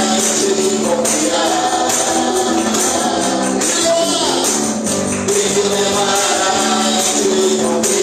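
Church band playing an upbeat gospel song, with singing over a steady tambourine rhythm.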